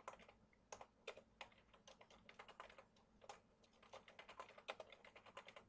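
Computer keyboard typing: a quick, irregular run of faint key clicks.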